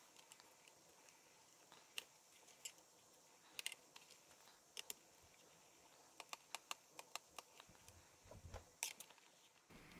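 Faint, scattered light clicks and taps of a thin metal tool working at a screw hole in a laptop's bottom case, where a small oval cover plug is pried off. The clicks come more often in the second half.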